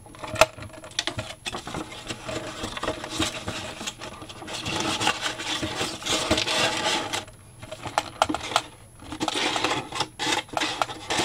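Stiff paper rustling and rubbing as a white card lining sheet is pressed and slid into a cardboard box, with scattered light knocks and clicks from handling the box.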